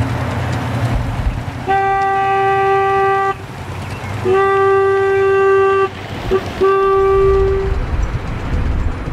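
Single-tone horn of a ride-on scale diesel-outline locomotive sounding the grade-crossing signal: two long blasts, a short one, then a long one. A steady low rumble runs under it.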